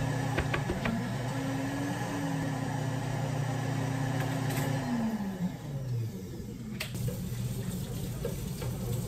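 Cafe blender running with a steady hum, then winding down and stopping about halfway through.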